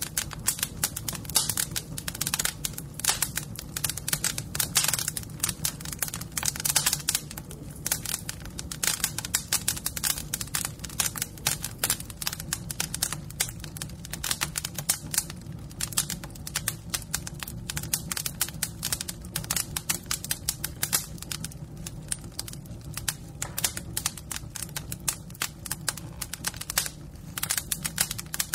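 Fire crackling: dense, irregular pops and snaps throughout, over a steady low rumble.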